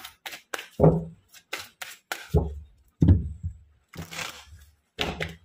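A tarot deck being shuffled by hand, overhand: the cards clacking and knocking together in irregular sharp hits, about two a second, with a short brushing slide of cards about four seconds in.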